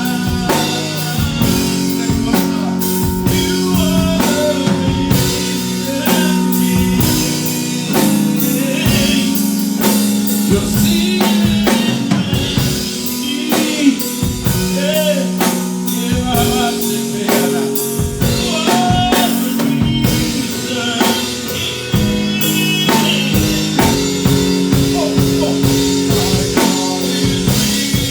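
Live band playing a gospel worship song: a drum kit with steady cymbal and drum hits over held chords.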